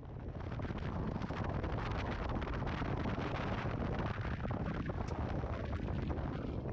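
Steady wind buffeting the microphone over the low rumble of a moving 4WD.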